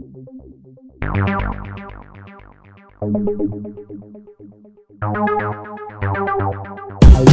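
Background music: a short phrase of notes starts about every two seconds and dies away, then near the end a loud, full section with a strong beat comes in.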